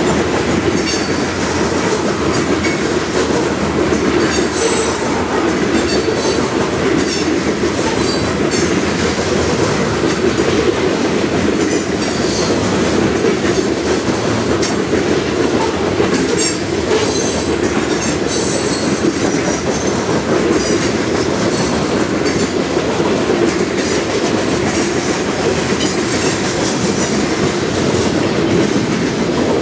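Freight cars rolling past close by: covered hoppers, then tank cars. There is a steady rumble of steel wheels on the rail, with frequent sharp, high-pitched clicks and brief wheel squeals.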